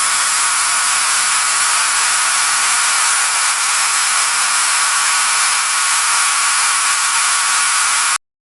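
Loud, steady static hiss like white noise, cutting off suddenly near the end.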